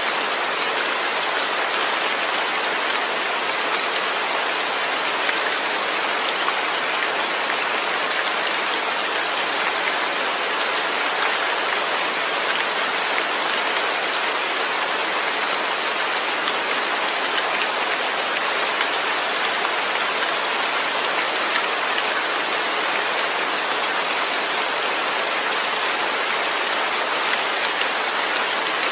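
Steady rain falling with no thunder: an even, unbroken hiss of rain on a surface.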